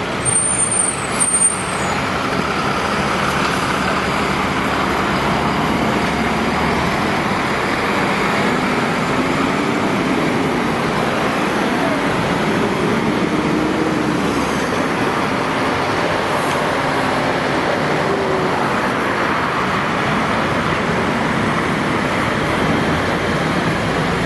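Convoy of heavy fire engines driving past on a city street: steady diesel engine and road noise, with a brief high squeal about half a second in.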